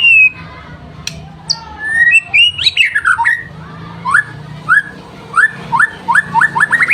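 White-rumped shama (murai batu) singing loudly: a falling whistle at the start, a jumble of varied phrases, then a run of short down-slurred notes that come faster and faster toward the end.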